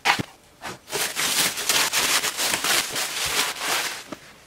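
Plastic stretch wrap crinkling and rustling as it is pulled off a boxed inverter, with a short squeak or knock of a foam packing block right at the start.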